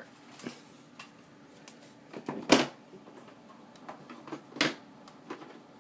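Scattered small clicks and taps from the parts of a disassembled folding knife and its pivot washers being handled, the loudest about two and a half seconds in.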